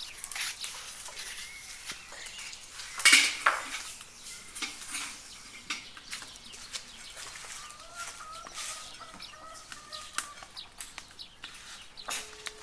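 Chickens clucking, with a run of short repeated clucks late on. Kitchen utensils and dishes clink and knock throughout, the loudest a clatter about three seconds in.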